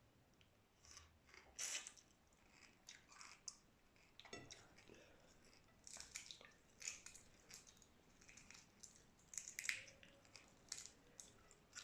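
Close-up chewing and mouth sounds of someone eating boiled shrimp and rice, with irregular short clicks.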